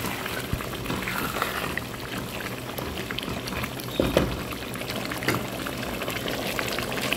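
Spiced milk gravy of beef rezala bubbling and spluttering in a nonstick pan while the masala is cooked down in the milk, with a spatula stirring through it, loudest about four seconds in.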